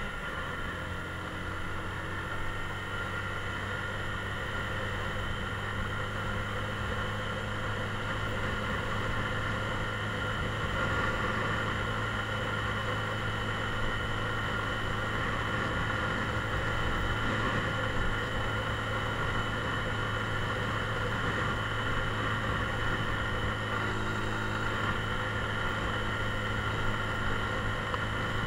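Mondial Drift 125 motorcycle engine running steadily at an even pitch while riding, growing slightly louder about a third of the way in.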